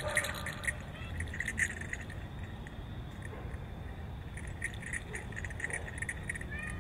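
Small metal jingle bells on a jester mask's horns jingling in quick clusters as the wearer moves his head, for about two seconds, then again from about four and a half seconds in.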